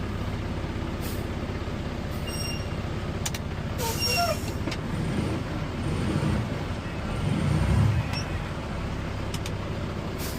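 Heavy diesel engine of a concrete mixer truck running steadily, swelling in load a few times, with several short hisses of air like air-brake releases.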